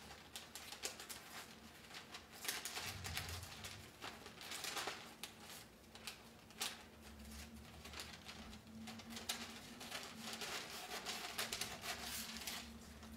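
Scissors snipping through waxed paper in many quick, irregular cuts, with the stiff paper crinkling as it is turned in the hand.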